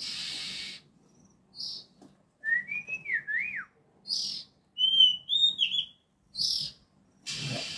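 Oriental magpie-robin (kacer) singing: short whistled phrases that glide up and down, between repeated harsh hissing calls, with a longer rasp at the start and another near the end. This is the kacer song that keepers play to bring birds into breeding condition.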